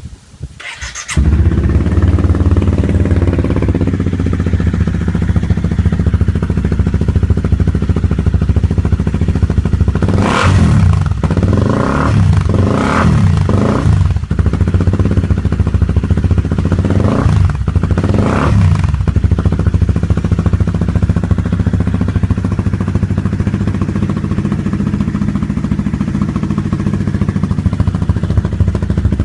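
Honda CBR250R's single-cylinder engine breathing through a Hurricane aftermarket sport exhaust tip. It starts about a second in and idles loudly, with a run of quick throttle blips about ten seconds in and two more a few seconds later.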